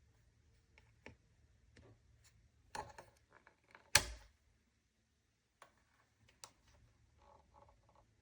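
A space heater being handled: a scatter of light clicks and knocks, with one sharp knock about four seconds in.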